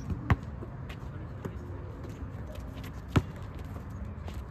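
A basketball bouncing hard on a court: two loud bounces about three seconds apart, with a few fainter knocks between them.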